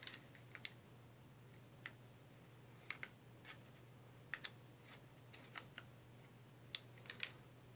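Faint, irregular plastic clicks and taps from two Haze dual-chamber vaporizers being handled, their hinged end caps flipped to rotate the chambers. About fifteen light clicks, some in quick pairs, over a steady low hum.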